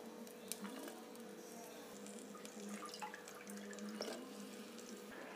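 Faint sizzling and light crackling of oil frying sliced onions in a clay pot. A soft steady hum runs beneath.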